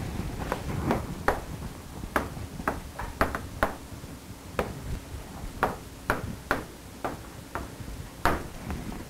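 Chalk tapping and clicking against a blackboard as a line of words is written: a series of sharp, irregularly spaced knocks, a couple of them each second.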